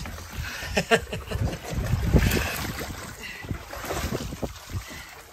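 Sea water sloshing and splashing around a sailboat's stern swim step, with wind buffeting the microphone and a couple of sharp knocks about one and two seconds in.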